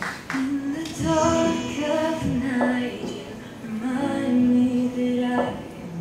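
A worship song playing, with a voice singing long held notes over soft accompaniment.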